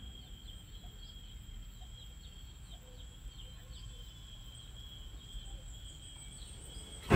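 Faint morning insect chorus: a steady high-pitched drone with short falling chirps repeated about twice a second, over a low rumble.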